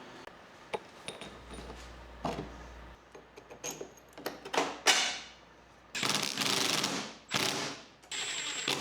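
Hand-tool work on metal while bolting down a hydraulic control valve: scattered clicks and knocks, then three loud mechanical bursts of about a second each from about six seconds in.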